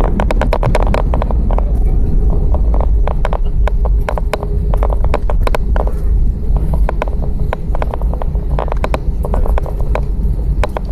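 Airbus A320 cabin noise: a heavy low rumble with many irregular clicks and rattles over a steady hum.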